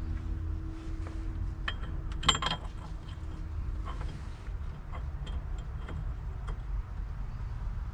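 Scattered small metal clicks and clinks, the loudest about two seconds in, as screws are handled and fitted by hand into an aftermarket steering-wheel hub, over a steady low rumble.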